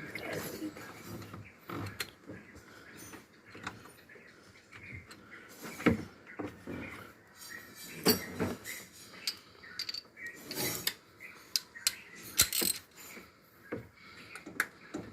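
Ratchet wrench clicking in short, irregular spells, mixed with scattered metallic clicks and knocks of hand tools, while the starter motor's mounting bolts are being worked loose.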